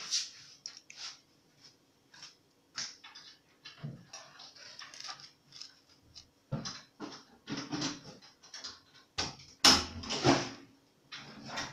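Metal cake server scraping and knocking against a tin baking pan as cake squares are lifted out: a run of short, irregular scrapes and taps, loudest about ten seconds in.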